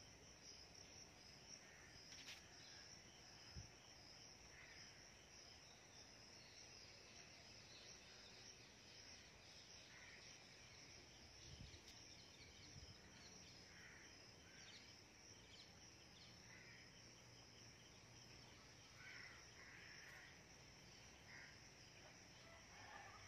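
Faint, steady high-pitched trilling of insects, with short bird chirps now and then and a couple of soft bumps.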